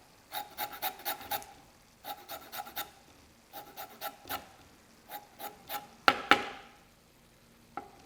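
Lemon rind being zested on a cheese grater: quick runs of short rasping strokes in four bursts with brief pauses, then two sharper knocks about six seconds in, and the rasping starting again near the end.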